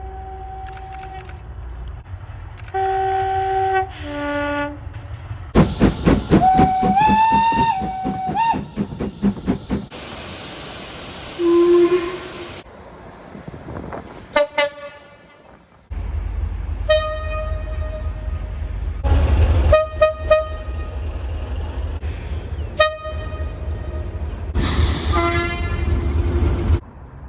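A run of train horn and whistle clips, each cut off abruptly. First come short chords of several notes, then a note that bends upward over loud noise, then a stretch of loud hiss. In the last ten seconds a low rumble runs under repeated horn blasts, some short and some longer.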